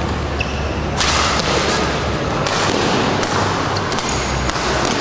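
Badminton rally: several sharp racket hits on the shuttlecock, roughly a second apart, with brief shoe squeaks on the court floor.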